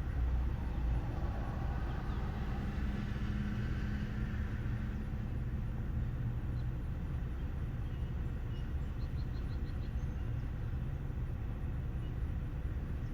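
Steady low rumble of a vehicle's running engine, heard from inside the cab, with a steadier engine hum rising and fading over the first few seconds.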